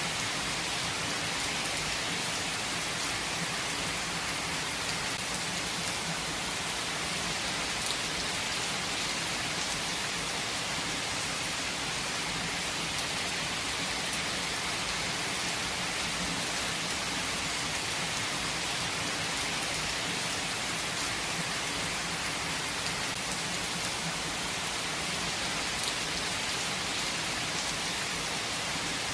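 Steady rain falling, an even hiss of many drops with a few brief, sharper drop ticks.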